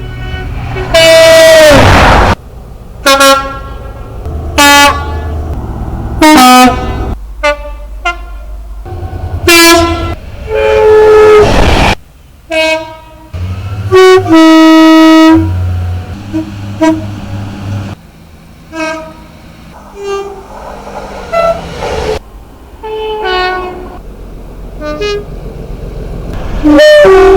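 A string of train horn blasts from diesel locomotives and units, many of them two-tone, sounding high then low; about a dozen blasts, mostly short, with a couple held for over a second. A low diesel engine hum runs under several of them.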